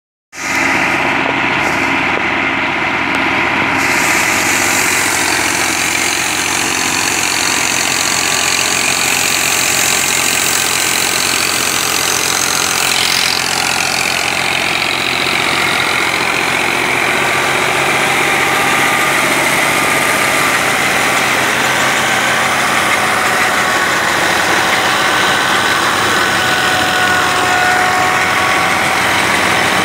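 A tractor-driven wheat thresher at work: the tractor's diesel engine and the thresher's drum and blower make a steady, loud mechanical din.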